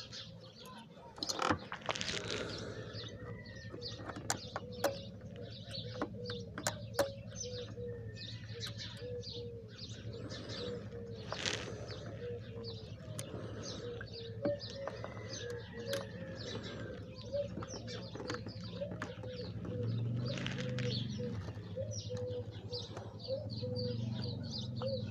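Birds chirping in the background, with a short note repeating every half second or so and many quick high chirps, over a low steady hum. A few sharp clicks and knocks come in the first several seconds as the multimeter leads are connected by hand.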